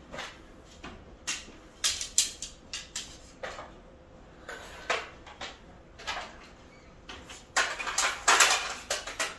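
Clicks, knocks and light clatter of a roll-up banner stand's aluminium parts being handled as it is packed away: the pole taken out and the base folded, with a louder run of rattling near the end as the base cassette is lifted.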